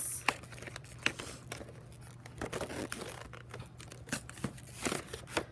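Crinkling and rustling of a plastic wrapper being worked open to pull out a new box of chalk pastels, with irregular small crackles and taps.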